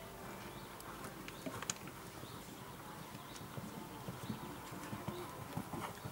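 Hoofbeats of a ridden horse on the sand footing of a dressage arena: soft, irregular thuds with small clicks over a steady outdoor background.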